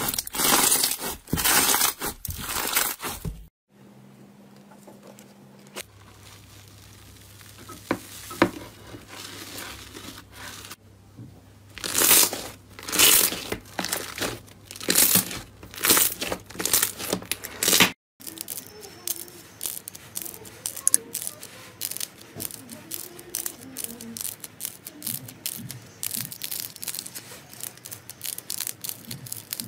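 Slime being squeezed, pressed and poked by hand, making strings of short crackling and squishing sounds in bursts. At first it comes from a blue foam-bead slime (floam), with short breaks where one clip gives way to the next.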